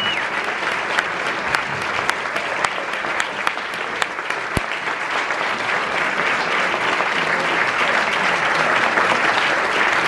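Audience applauding, many people clapping at once, swelling slightly toward the end, with one sharp click a little past four and a half seconds in.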